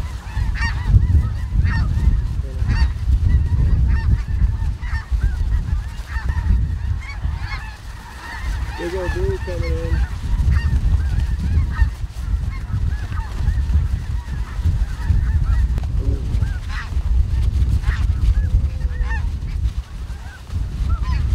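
A chorus of snow goose calls: many short, high honks overlapping without a break, over a steady low rumble of wind on the microphone.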